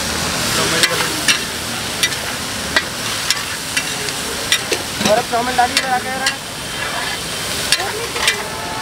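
Chowmein noodles stir-frying in a large kadhai: a steady sizzle, with the spatula striking and scraping the pan at irregular intervals, about one or two clanks a second.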